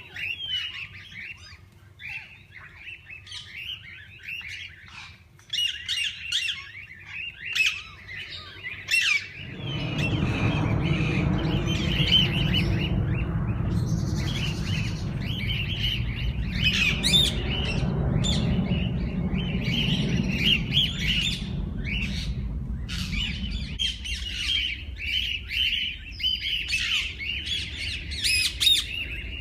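A flock of parakeets chirping, chattering and squawking continuously. From about a third of the way in until about four-fifths of the way through, a loud low rumbling noise runs underneath the birds.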